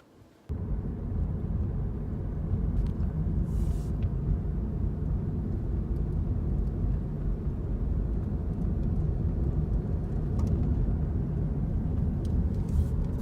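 Steady low road rumble of a Toyota Prius driving, coming in suddenly about half a second in.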